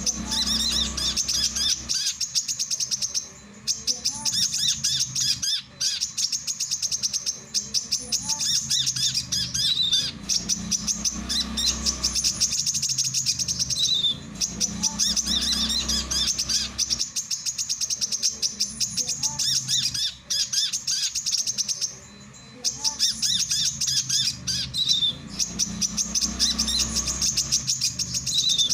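Male brown-throated sunbird singing: long runs of rapid, high chirps, broken by short pauses every few seconds.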